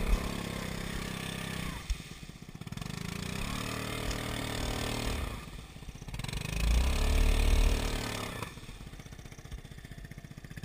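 ATV engine revving up and falling back about three times, straining under load as it is pushed up a steep, loose slope.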